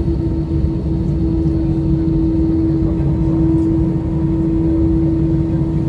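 Airbus A320 cabin noise while taxiing, heard from inside over the wing: a steady engine drone at taxi power with one steady hum tone running through it.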